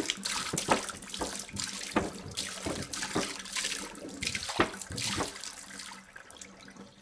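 Water pouring from a jug, splashing in uneven pulses, then tapering off near the end.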